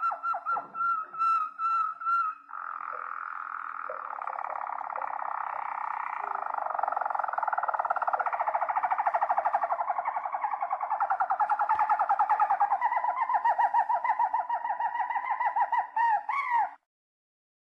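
Harzer Roller canary singing: a few quick repeated notes, then one long rolling trill that grows louder and runs on for about fourteen seconds before stopping abruptly near the end.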